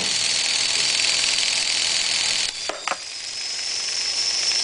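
VEX motors driving a geared VEX gearbox at speed under a durability stress test, giving a steady high whine with gear hiss. About two and a half seconds in it falters briefly with a couple of knocks, then the whine climbs higher in pitch as it speeds up.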